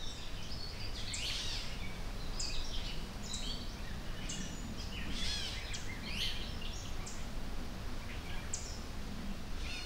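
Wild birds singing: a run of short chirps and quick sweeping whistled notes, repeated throughout, over a low steady background of outdoor noise.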